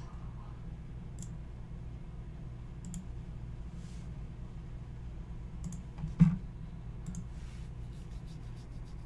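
Scattered clicks of a computer mouse, with one louder knock about six seconds in, over a steady low hum.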